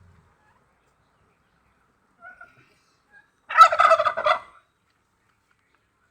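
A domestic fowl gives one loud, rapid rattling call about a second long, a little past the middle, with a couple of faint short calls before it.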